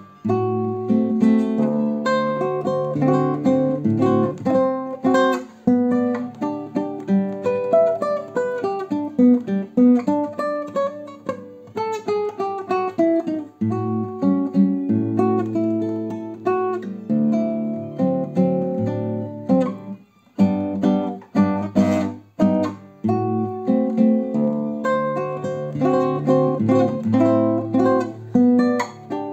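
Solo classical guitar played fingerstyle: a continuous run of plucked melody notes over a moving bass line, with a brief break about two-thirds of the way through.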